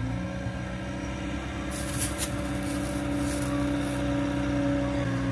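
Skid steer engine running steadily under load while pulling a tree, its pitch shifting slightly at the start and again near the end. A brief rasping noise sits over it between about two and four seconds in.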